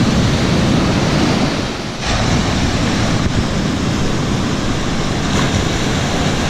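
Ocean surf rushing steadily, with wind buffeting the microphone; the rush dips briefly about two seconds in, then swells again.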